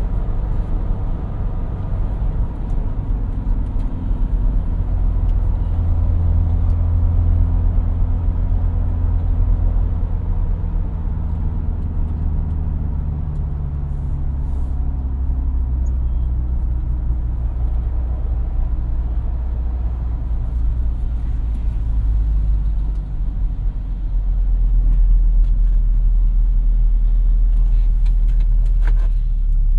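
A VW T3 van driving, heard from inside the cabin: a steady low engine drone with road noise. The engine note eases slowly down in pitch through the middle and grows a little louder again in the last few seconds.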